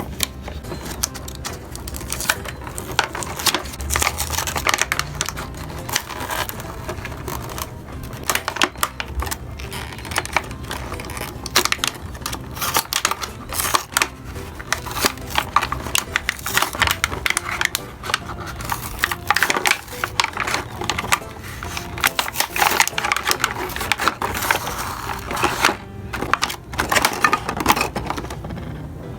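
Hands unpacking and handling small plastic toy-kitchen pieces and their packaging: irregular clicks, taps and rustles, several a second.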